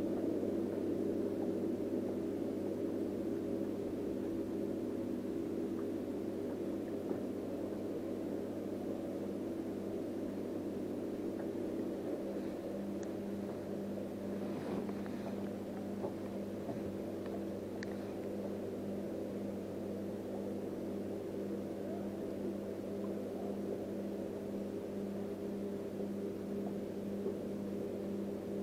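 Electric trolling motor running with a steady hum as the boat moves slowly along the docks.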